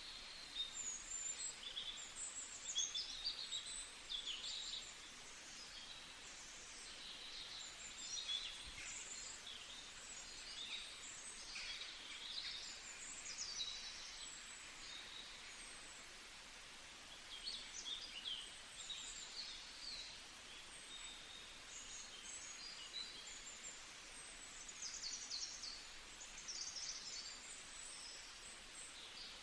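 Several small songbirds chirping and trilling in quick, high-pitched bursts over a steady background hiss, busier in some stretches than others.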